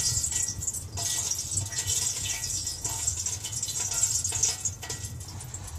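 Kerosene boiling in the bottom of an H45 multi-fuel heater's burner pot as the fire heats it: a steady, dense crackle of small pops over a low rumble.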